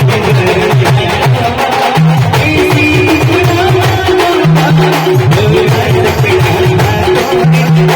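Live band music: a fast, steady drum beat under a held melody line, with short breaks in the drumming about two seconds in and again halfway through.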